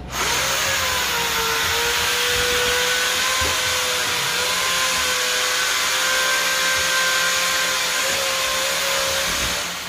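Compressed air blasting steadily from an air nozzle at a tyre changer, a loud hiss with a steady whistling tone over it. It starts suddenly and fades out just before the end.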